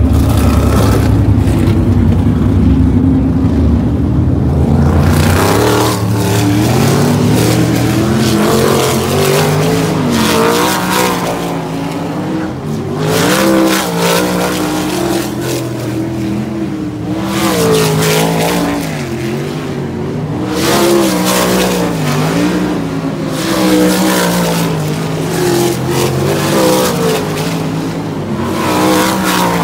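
Race car engines running laps on a dirt oval, their pitch rising and falling again and again as the cars come off and back onto the throttle. The sound is heaviest and lowest in the first five seconds.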